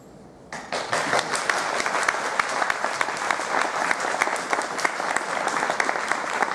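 Audience applauding: a roomful of people clapping, starting suddenly about half a second in and keeping up steadily.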